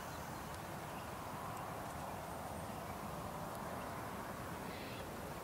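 Steady low background hiss, like room tone, with a few faint ticks.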